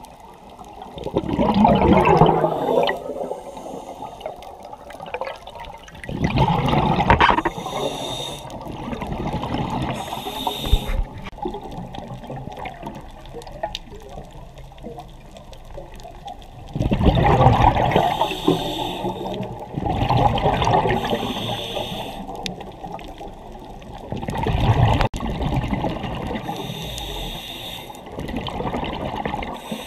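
Scuba diver breathing underwater through a regulator: exhaled bubbles rush out in bursts of a second or two every few seconds, with fainter hissing inhalations between them.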